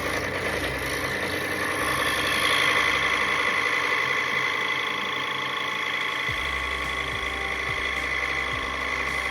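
Scroll saw running steadily, its reciprocating blade, a Flying Dutchman No. 5 Ultra Reverse, cutting through wood.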